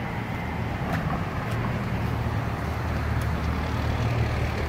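Road traffic on a multi-lane road: cars passing with a steady engine and tyre noise, and a deeper engine rumble that comes up about a second and a half in.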